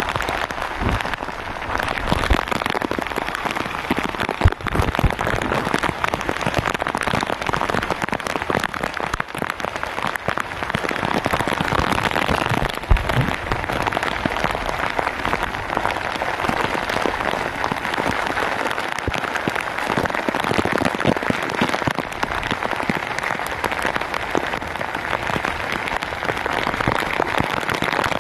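Steady rain falling on the sea surface and on the boat, with a couple of brief low knocks along the way.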